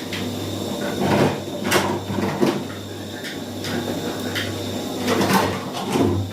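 Kitchen handling sounds: a handful of irregular knocks and clatters, as of cookware and utensils being picked up and set down, over a steady low hum.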